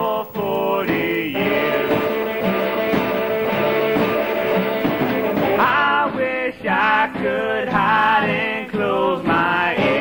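Background music: a song with a singing voice over a band.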